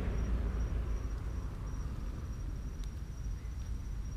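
Crickets chirping, a thin high pulsing note repeated about three times a second, over a steady low rumble.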